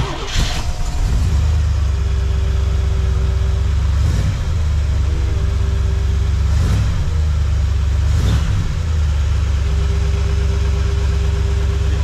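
A 1966 Corvette's 427 big-block V8 starting and running at a steady idle, with a few short blips of the throttle.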